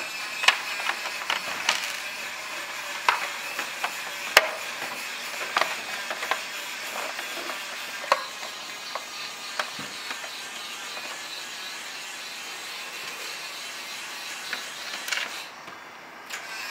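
Scattered sharp clicks and knocks of a Henglong M1A2 Abrams RC tank's turret shell and cover being handled and fitted together over the wiring, over a steady hiss.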